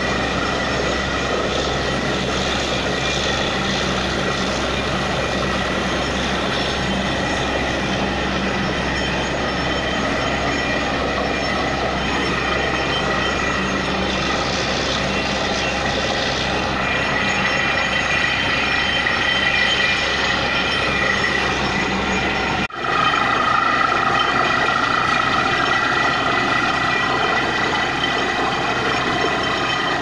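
Truck-mounted borewell drilling rig running steadily during drilling: engine and air compressor noise with a steady high whine over it. The sound drops out for a moment about two-thirds of the way in.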